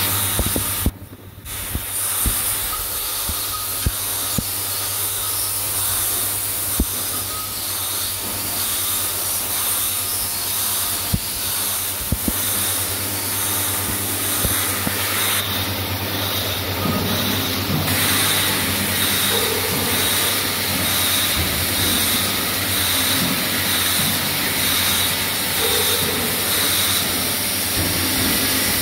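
Syringe assembly machine running: a steady hiss and low hum, with scattered sharp clicks from its mechanisms.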